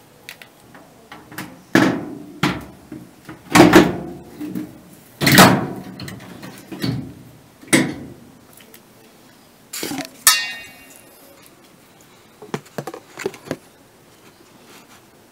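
A series of loud clunks and knocks as a clothes dryer's metal cabinet parts are handled during reassembly, one of them with a brief metallic ring about ten seconds in. A few fainter clicks follow near the end.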